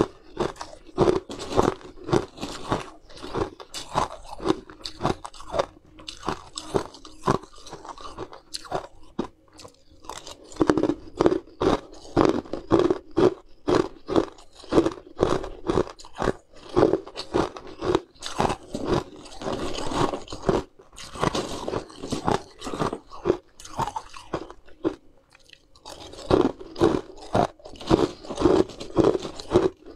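Close-miked crunching and chewing of hard coloured ice cubes: a dense run of crisp bites, with a short pause near the end.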